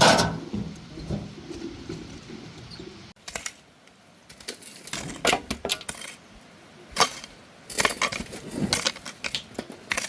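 Garden hoe chopping into soil: a run of irregular sharp knocks with light metallic clinks, the blade striking earth and stones.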